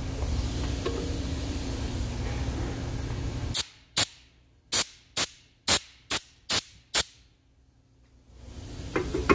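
Short blasts of compressed air from a blow gun, about seven quick bursts over three seconds, blowing metal chips out of a milling fixture. A steady background hum runs for the first few seconds before the blasts begin.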